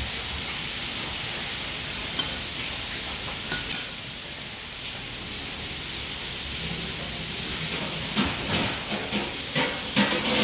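Steady hiss with a metal spoon clinking on a ceramic plate, a single clink about two seconds in and a couple of ringing clinks about three and a half seconds in. Near the end come a run of light knocks and rustles as food is handled on a cutting board.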